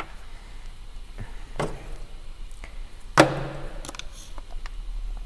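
Small plastic clicks and knocks as the rear cover of a heater blower motor is pried off its plastic latches, with one sharp snap about three seconds in.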